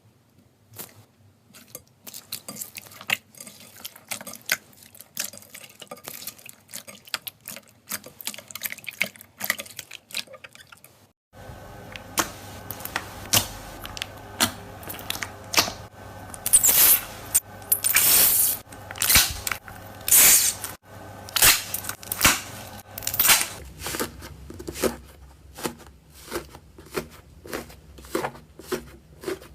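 Slime being squeezed and worked by hand: a steady run of small sticky clicks, pops and crackles. About eleven seconds in it changes to a louder take with a low steady hum underneath and sharper snaps.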